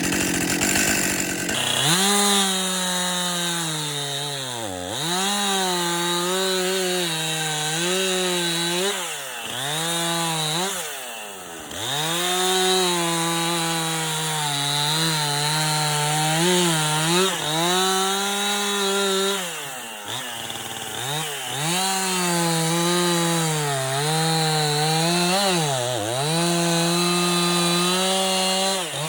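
Stihl MS 261 C two-stroke chainsaw with its stock muffler, running at high revs with a steady pitch. The revs drop sharply and climb straight back up a dozen or so times, with a longer fall to a low, uneven run about two-thirds of the way through.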